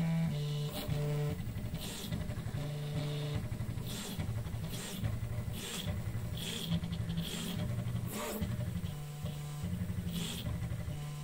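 Prusa 3D printer's stepper motors whining in steady tones that change pitch in steps as the print head moves from point to point during a 49-point mesh bed-levelling calibration, with a short rushing sound of movement about once a second.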